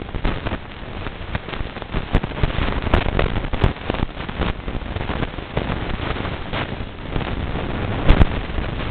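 Wind buffeting the camera's microphone in rough gusts, with frequent crackles. Two sharp knocks come near the end as the camera is swung.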